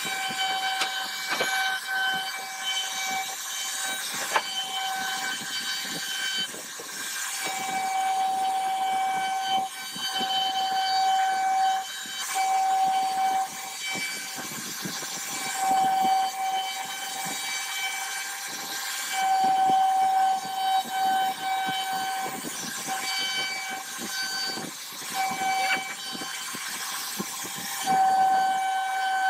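CNC router spindle whining at one steady pitch while its cutter carves grooves into a wooden door panel. The whine swells and fades in stretches of a few seconds as the cut goes on, over a steady hiss.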